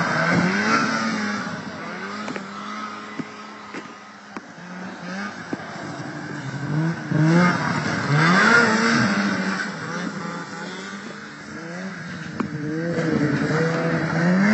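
Racing snowmobile engines revving, their pitch rising and falling with the throttle as sleds run past. They are loudest about a second in, again around seven to nine seconds in, and near the end.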